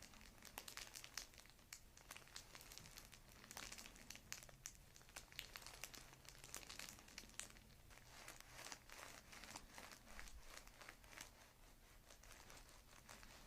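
Faint, continuous rustling and crinkling with many small scratchy ticks: hands moving over the patient's body, clothing and the treatment table during hands-on back work.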